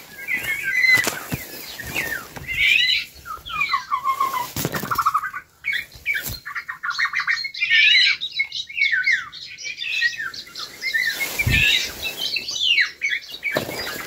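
Birds chirping and calling, with quick trills and varied chirps throughout. Foliage rustles and there are a few handling knocks.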